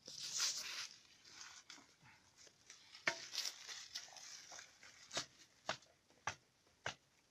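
Faint rustle, then a run of sharp, evenly spaced ticks, a little under two a second, with no engine running.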